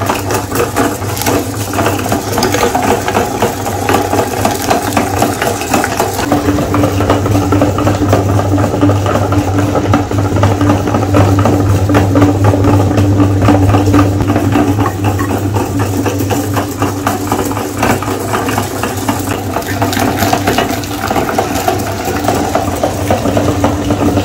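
Electric meat grinder running with a steady motor hum and a rattling of the auger and cutting plate as it grinds an ice cream bar. The hum grows stronger about six seconds in and eases off some ten seconds later.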